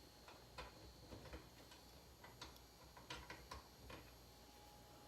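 Faint, irregular light clicks and taps of sockets being handled in a ratcheting socket set.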